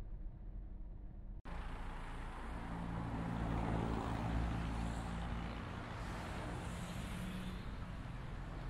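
Motor traffic noise: a vehicle engine running with a steady low rumble under a wash of road noise, cutting in suddenly about a second and a half in.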